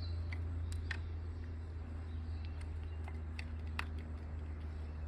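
A handful of light, sharp clicks from a hand tool being worked on the fork's bolts while their torque is checked, over a steady low hum.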